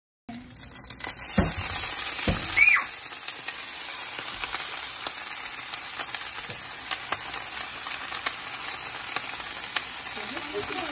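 Shredded cabbage dropped into hot fat in a cast-iron skillet sizzles loudly as it hits. The sizzle eases after two or three seconds into steady frying with small pops.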